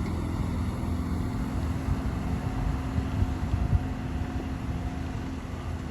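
Heavy diesel engine of an excavator running steadily, a low rumble with a constant hum and a few irregular low knocks.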